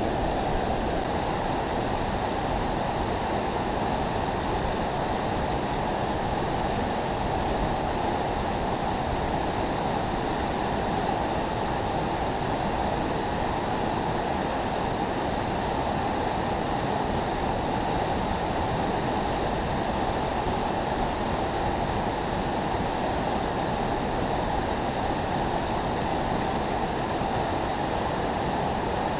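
Steady, unbroken rush of river water pouring through a spillway.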